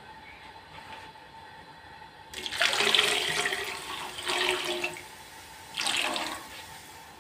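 Chicken stock poured from a bowl into an aluminium pot of fried chicken and vegetables, splashing for about two and a half seconds, then a second, shorter pour near the end.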